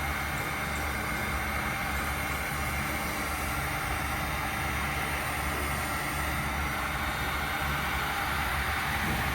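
Steady machine noise: a low hum under an even rushing sound, with no change or break.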